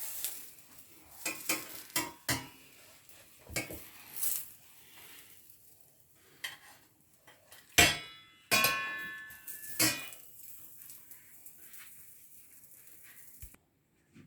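Utensil knocking and scraping against a frying pan while an omelette cooks, over a faint frying sizzle. About eight seconds in come two louder metallic clanks that ring on briefly, and the sound cuts off suddenly near the end.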